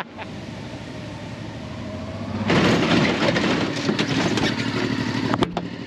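1992 Honda XRV750 Africa Twin's V-twin engine running, building gradually, then much louder from about two and a half seconds in. It cuts off with a sharp click shortly before the end.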